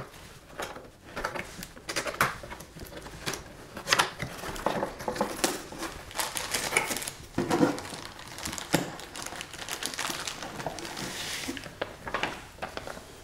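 Cardboard box flaps being opened and plastic packaging crinkling as the contents are handled: irregular clicks, scrapes and rustles.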